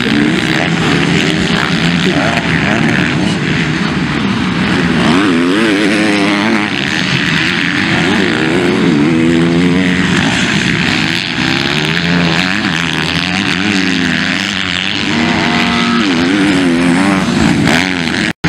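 Several motocross bikes racing, their engines revving hard with the pitch repeatedly rising and falling as they accelerate and shift. The sound cuts out for an instant near the end.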